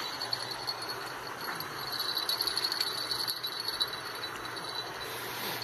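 Chorus of night insects trilling steadily on a high pitch, swelling for a couple of seconds in the middle.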